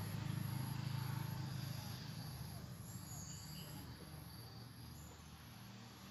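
Insects, crickets or similar, chirping in a steady, high-pitched pulsing rhythm over a low rumble that fades away toward the end.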